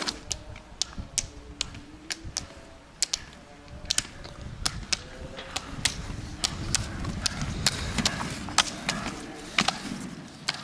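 Roller skiers skating on asphalt: the poles' metal tips plant on the tarmac in sharp, irregular clicks, over the low rumble of the roller-ski wheels.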